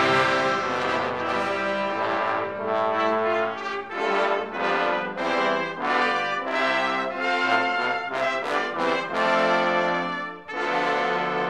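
Symphonic wind band playing with the brass to the fore: a run of separately attacked chords, with a brief break in the sound about ten and a half seconds in.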